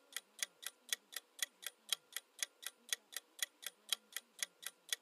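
Countdown timer sound effect: a clock ticking steadily, about four ticks a second.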